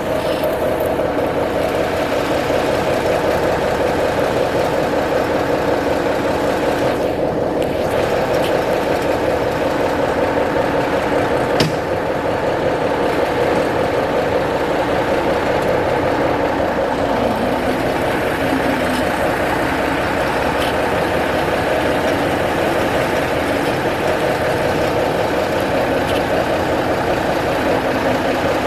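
1974 Kenworth self-loading log truck's diesel engine running steadily, with a single sharp click about twelve seconds in.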